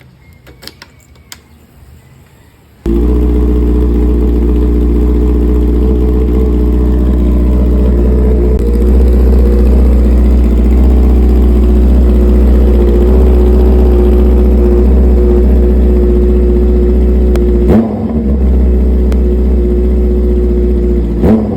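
Honda CB650R's inline-four engine with an Ixil full-system exhaust starting about three seconds in after a few faint clicks, then idling steadily and loud. Near the end there are two quick throttle blips a few seconds apart.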